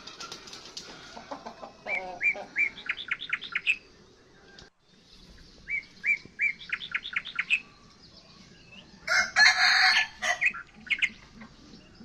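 Birds: a small bird's fast chirping phrase, given twice, with lower clucks like chickens' and a short burst of wing flapping about nine seconds in.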